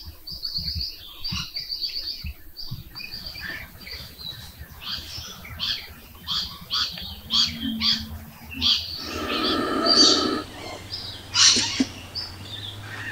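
Wild birds calling in open woodland, with rapid high trills and short repeated chirps one after another. A louder, harsher call comes about nine to ten seconds in.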